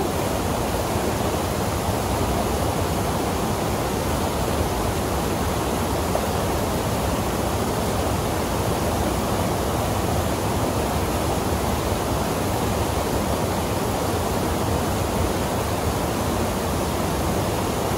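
Steady rushing of white-water rapids and a small waterfall pouring over rocks into a pool.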